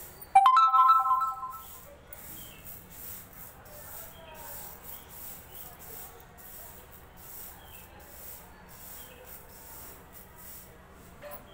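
A steel plate gives one loud metallic ring about half a second in, which dies away over a second or so. Then comes the faint rustle of dry lentils being picked through by hand in the plate.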